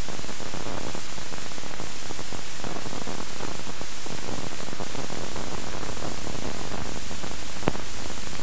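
Steady hiss of an old film soundtrack, with no distinct engine or touchdown sound, and a single sharp click near the end.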